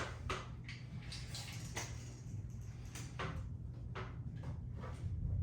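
Faint scattered clicks and light taps, about half a dozen, from handling and positioning the cat door against a door, over a steady low hum.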